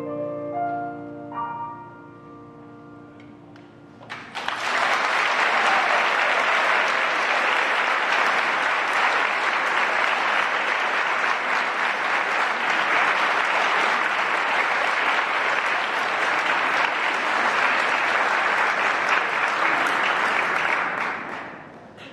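A choir and piano's final chord dies away, and about four seconds in an audience breaks into steady applause that lasts some seventeen seconds before fading near the end.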